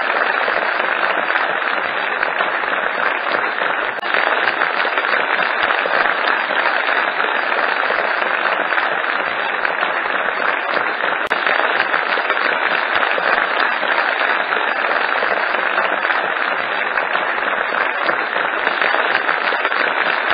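Audience applauding steadily, a dense, even clapping that keeps up without a break.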